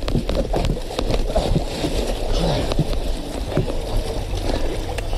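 Fast river water rushing and sloshing around an overturned car, heard close up through a police body camera's microphone, with scattered knocks and rubbing against the car body.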